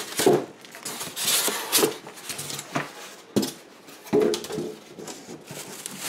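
A styrofoam packing insert being worked out of a cardboard box: foam scraping and rubbing against cardboard and plastic wrap in irregular bursts.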